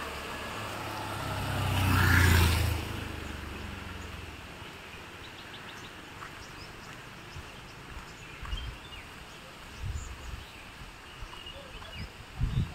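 A motorcycle passes close by on a wet road about two seconds in; its engine hum and tyre hiss swell and then fade within a second or so. Afterwards there are faint bird chirps and a few soft low thumps.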